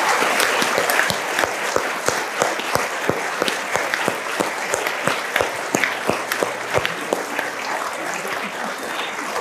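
Congregation applauding, many hands clapping together and gradually thinning out toward the end.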